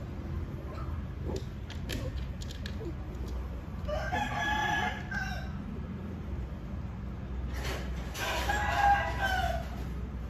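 Cat yowling twice during mating: two long, drawn-out calls a few seconds apart, the second longer and falling in pitch at its end, the mating cry of a cat in heat.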